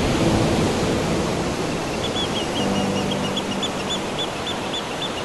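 Sea surf washing over rocks: a steady rush of water. From about two seconds in, a row of short high chirps repeats several times a second.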